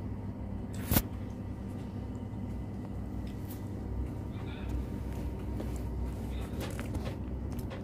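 Steady low background rumble, with one sharp click about a second in and faint, indistinct voices.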